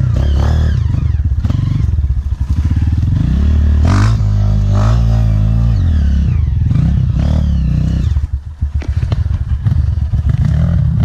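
Single-cylinder four-stroke trail motorcycle engine running under throttle, revving up and easing off as it rides. There is a brief drop in engine sound about eight seconds in.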